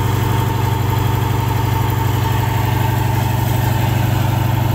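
Sand-suction dredge's engine running steadily under load with an even, fast chug, driving the pump that sucks up sand.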